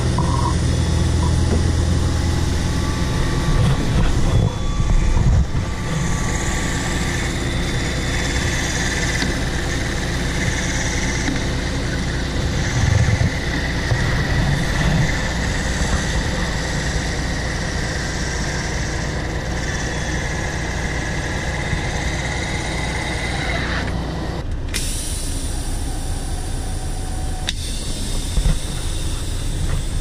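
Heavy diesel farm machinery running steadily: a combine unloading corn into a grain trailer, then the semi truck idling. A steady whine runs through the middle, and the sound changes abruptly about three-quarters of the way through.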